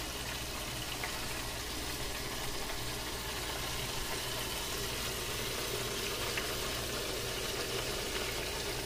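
Chicken strips frying in a deep fryer, the hot oil bubbling and sizzling steadily, over a low steady hum.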